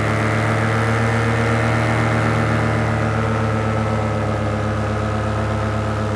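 Paramotor's two-stroke engine and propeller running steadily in flight, its pitch easing down slightly about halfway through.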